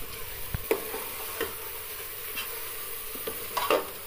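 Beef and ground spices frying in oil in a metal pressure cooker pot, sizzling steadily while a metal spoon stirs through the meat, with a few clicks and scrapes of the spoon against the pot, the loudest near the end.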